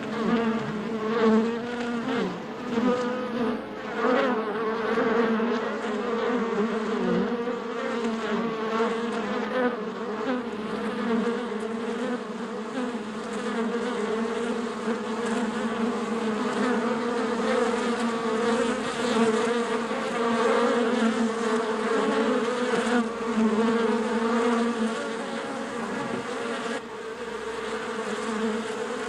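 Honeybee hive buzzing: the dense, continuous hum of many bees' wings, a low drone with overlapping wavering pitches that swells and ebbs slightly.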